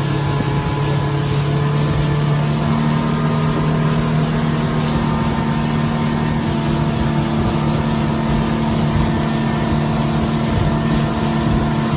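Boat engine running steadily with the boat underway at speed, together with the rush of water and wind against the hull, heard from inside the wheelhouse.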